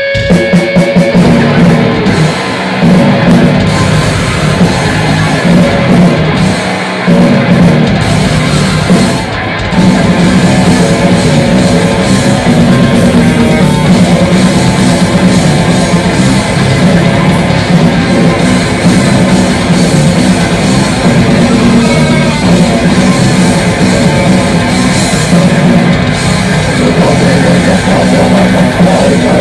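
A metal band playing live through amplifiers: distorted electric guitar, bass guitar and drum kit. The riff stops short a few times in the first ten seconds, then runs on without a break.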